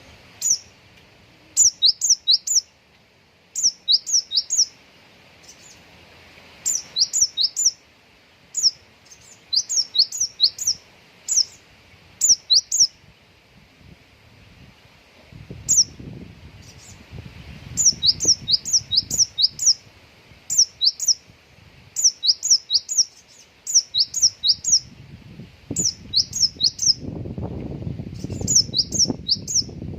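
Konin songbird singing in bursts of three to six quick, sharp, high chirps, each sweeping downward, repeated every second or two; the phrases are the bird's imitation of Java sparrow (gelatik) calls.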